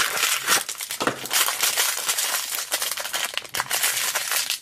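Crinkly toy blind-bag packaging being torn open and handled, a dense, continuous crackling.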